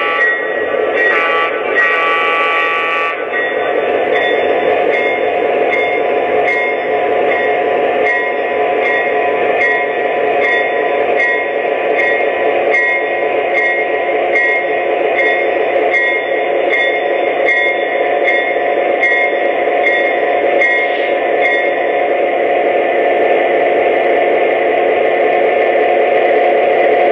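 Sound system of an Atlas O F7 model diesel: the prime-mover sound runs steadily throughout. The horn sounds a short blast and then a long one in the first three seconds. The bell then rings about one and a half strikes a second until around twenty seconds in, and the engine sound grows a little louder near the end.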